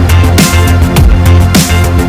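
Background music: an electronic track with a heavy bass line and a strong, steady beat.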